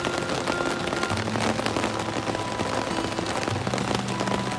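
Rain falling steadily on a tarp overhead, a dense spatter of drops. Soft background music with held notes plays over it.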